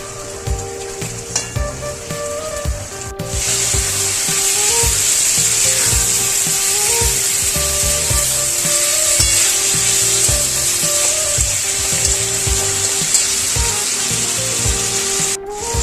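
Food frying in a pan with a steady sizzle, which becomes much louder after an abrupt cut about three seconds in, over background music with a steady beat.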